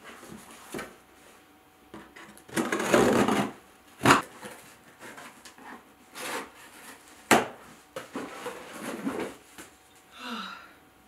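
Cardboard box being handled and unpacked: irregular rubbing and scraping of cardboard, with a few sharp knocks, the loudest about four and seven seconds in.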